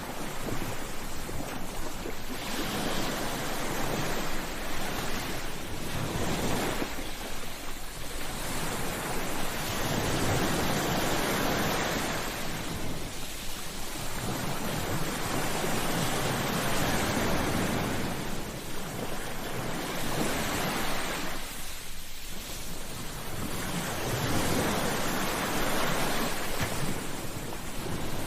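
Ocean waves breaking on a shore, a steady rush of surf that swells and fades in slow surges several seconds apart.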